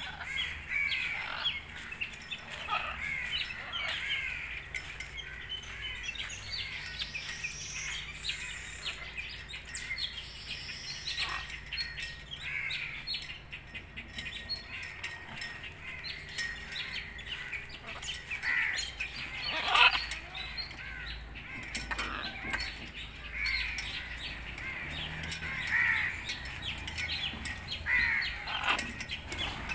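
Several birds calling and chirping in a dense run of short calls, with one louder call about two-thirds of the way through.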